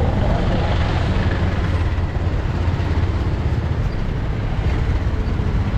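Steady low rumble and rushing noise of a vehicle on the move.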